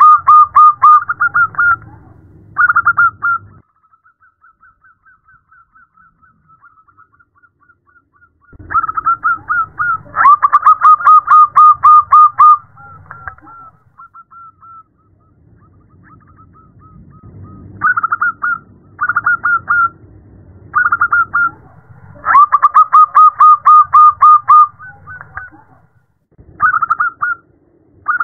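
Zebra dove (perkutut) cooing: repeated phrases of rapid, staccato trilled coos, loud runs broken by a faint run of coos a few seconds in. The call is presented as a female calling to a male.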